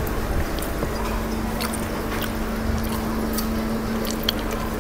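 Chewing, with a few light clicks of a spoon against the plate, over a steady low hum.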